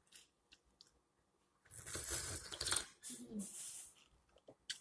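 Slurping hot champurrado from a foam cup: two long, airy slurps, the first starting about a second and a half in, followed by a short click near the end.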